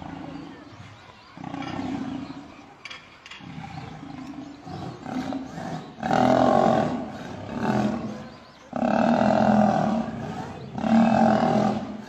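Lions snarling and growling in a fight as several lionesses set on a male lion, who snarls back with his mouth wide open. The sound comes in repeated bursts about a second long, louder from about six seconds in.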